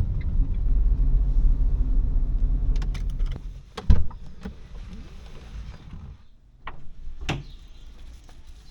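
Low, steady rumble of a car in motion heard from inside the cabin, which stops about three and a half seconds in. Just after it, one loud, heavy thump, then a few light clicks and knocks.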